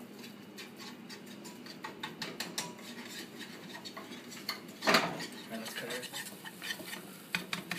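Metal whisk scraping and clicking against a nonstick frying pan, stirring a thick butter-and-flour roux as it cooks. There is a steady patter of small clicks, with one louder knock about five seconds in.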